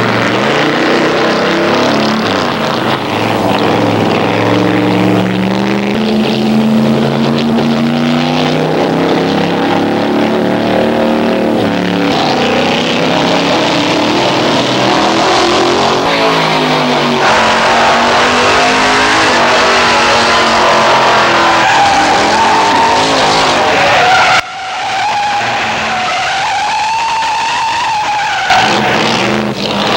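Ford 427 V8 race-car engine running hard, its pitch rising and falling repeatedly as the car is driven through turns. About three-quarters of the way through, the engine note drops away suddenly and a high, wavering tire squeal takes over for about four seconds as the car slides.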